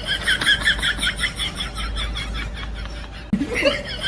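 High-pitched rapid laughter, a quick run of 'ha' pulses, dying down in the middle and starting again a little after three seconds in.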